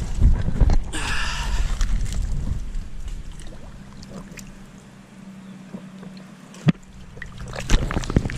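Water splashing and sloshing as a camera goes into a shallow canal, then muffled underwater sound with a steady low hum, a sharp knock near the end.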